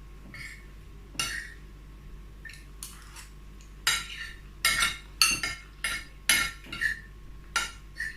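Cutlery clinking and scraping against a plate of rice and stew while eating. About a dozen short clinks and scrapes, coming closer together and louder in the second half.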